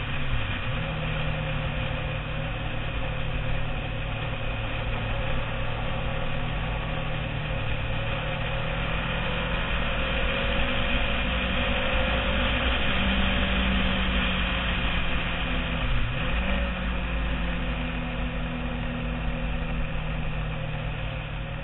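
Sport motorcycle engine running at road speed, heard from a camera mounted on the bike, with wind rushing over the microphone. The engine note dips briefly and recovers twice, about half a second in and about 16 seconds in.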